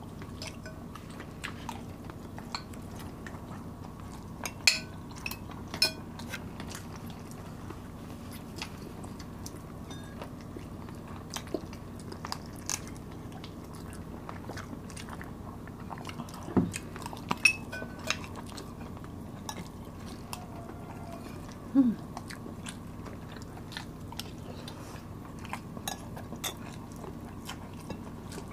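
Close-miked eating: chewing and biting of sticky rice and roast chicken, with scattered sharp clinks of metal spoons against a glass bowl and dishes, over a steady low room hum.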